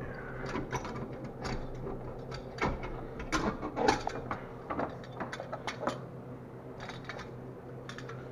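Irregular clicks, taps and light knocks from hands and the camera moving around the engine bay, over a steady low hum.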